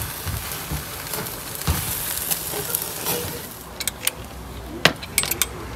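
Meat sizzling on a barbecue grill as metal tongs lift flatbread off the grate. After about three and a half seconds the hiss drops away and a few sharp metallic clicks follow, from a wire fish-grilling basket being handled.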